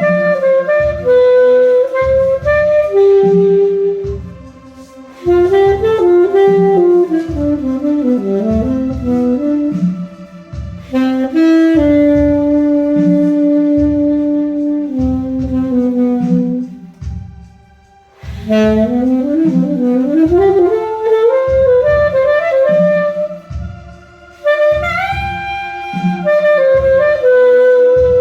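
Live alto saxophone playing a melody of quick runs and long held notes over a recorded backing track with a steady low pulse. The phrases break off briefly about four, ten and eighteen seconds in.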